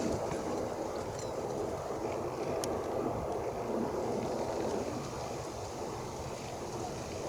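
Airbus A320ceo's jet engines, a steady rushing noise that fades slightly near the end, with wind on the microphone.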